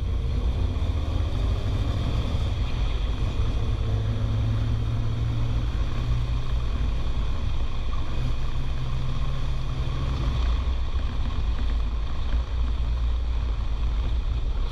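Studebaker V8 engine and road noise heard from inside the car's cabin, running at a steady speed with a constant low drone; a low hum holds from about four seconds in and drops away about ten seconds in.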